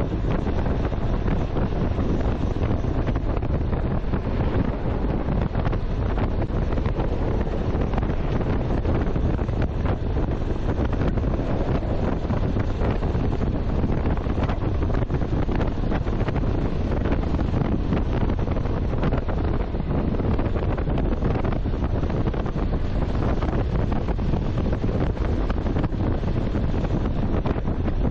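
Steady wind rushing and buffeting over the microphone of a motorcycle riding at speed, a dense low roar with no clear engine note above it.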